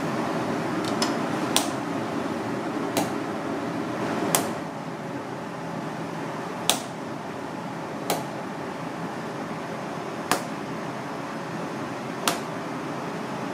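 Sharp taps and slaps on a plastic cutting board as red clam meat is handled, about eight of them spaced irregularly, over a steady background hiss with a faint constant hum.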